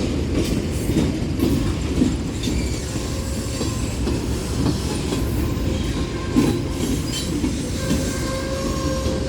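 Union Pacific manifest freight train's cars, hoppers among them, rolling past: a steady rumble of steel wheels on rail with irregular clicks as wheels cross rail joints. A faint steady tone comes in near the end.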